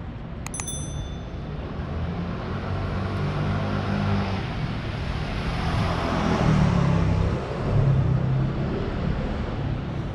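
A click and a short bell-like ding at the very start, then city street traffic: a low, steady traffic hum that swells as a motor scooter passes close by around six seconds in.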